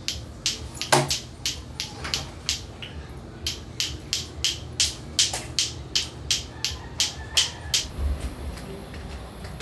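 Lato-lato clacker toy: two hard plastic balls on strings knocking together in a steady rhythm of sharp clacks, about three a second. The clacking stops shortly before the end.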